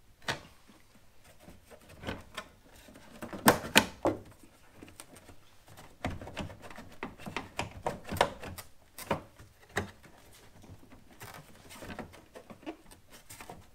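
Irregular clicks and knocks of a 2007 Saturn Sky's plastic taillight housing being worked back and forth by hand to free it from its locating posts, the loudest a few seconds in.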